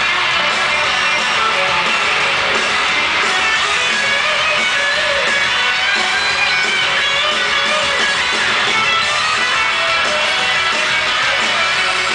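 Live pop-rock band playing in a large arena, with strummed electric guitar over drums. It is loud and steady, with no break.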